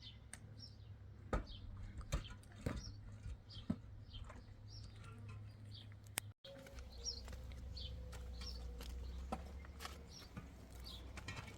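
Small birds chirping over and over, with scattered sharp knocks and clicks and a low rumble underneath. The sound drops out for an instant just past halfway.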